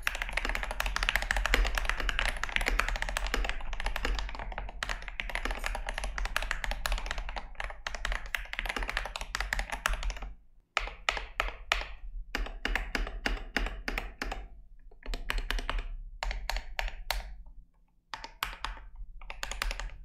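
Typing on a DrunkDeer A75 keyboard with a plastic case, magnetic Hall-effect linear switches and MT3 keycaps. A dense run of keystrokes gives way after about ten seconds to shorter flurries with brief pauses. Many keys sound pingy and the strokes reverberate inside the plastic case, which the reviewer finds a little too much.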